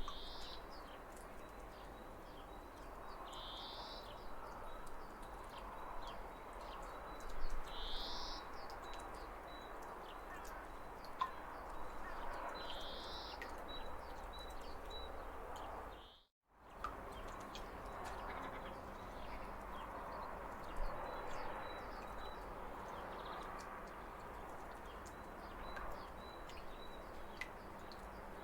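Flowing waterfall water with birds chirping over it; four short high bird calls come in the first half. The sound drops out completely for a moment a little past halfway.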